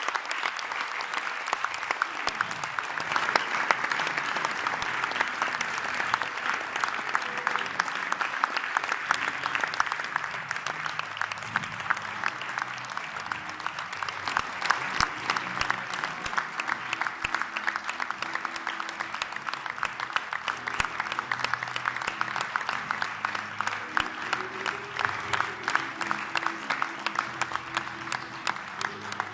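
Audience applause: steady, dense clapping that thins slowly. Music fades in under it about halfway through and grows toward the end.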